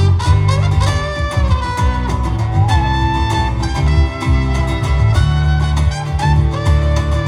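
Instrumental break of an acoustic band's song: a lead melody line with pitch slides plays over strummed guitar and a steady bass.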